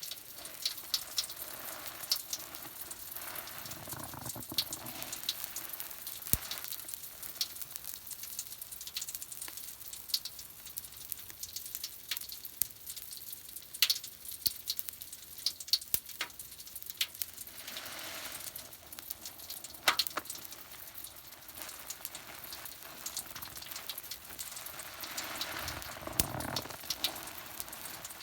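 Foam from Pinalen cleaner and a bath product crackling and fizzing as its bubbles burst: a steady fine sizzle dotted with many tiny pops and a few sharper ones.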